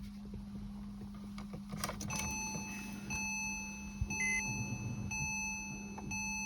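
Electronic beep tone from a 2006 Porsche Cayman S, starting about two seconds in and sounding steadily, broken by short gaps about once a second, over a low steady hum.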